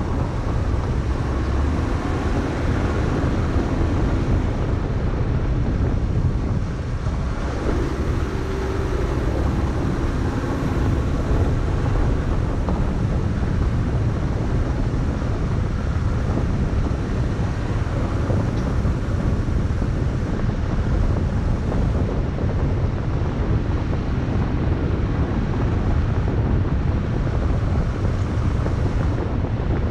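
Vehicle driving at speed on a gravel road: a steady low rumble of tyres and engine, with wind buffeting the outside-mounted microphone.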